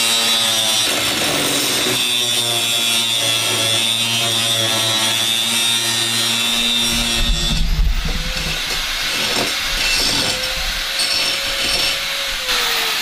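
Angle grinder cutting through a steel floor-pan bolt head: a steady, high grinding rasp over the motor whine. About seven seconds in the cut eases off, and near the end the motor note drops as it slows.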